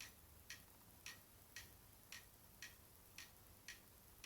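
A clock ticking faintly and evenly, about two ticks a second.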